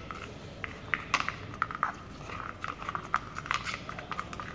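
A slide stirring a milk and detergent mix in the cup of a plastic mastitis-test paddle, making a run of light, irregular clicks and scrapes against the plastic. This is the mixing step of the surf field mastitis test.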